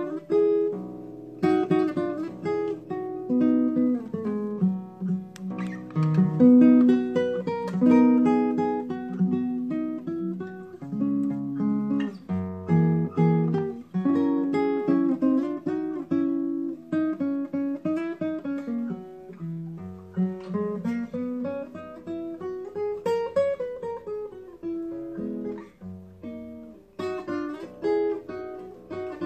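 Nylon-string classical guitar playing an instrumental break in a jazz ballad, a plucked single-note melody over chords, with a run that climbs and then falls back about two-thirds of the way through.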